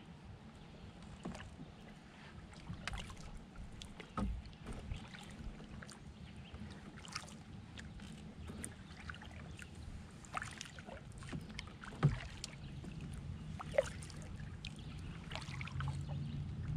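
Canoe paddling: soft, irregular splashes and drips of water off the paddle blade, over a low steady rumble, with two sharper knocks past the middle.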